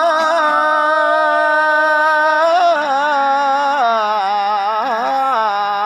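A man reciting the Quran in the melodic tajwid style, drawing out one long sung phrase with wavering ornaments that steps down in pitch after the middle.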